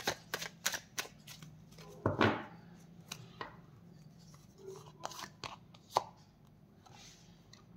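A tarot deck being handled and shuffled: a run of quick, sharp card clicks and snaps, a longer rustle about two seconds in, then scattered clicks as a card is drawn off the deck, the sharpest near six seconds in.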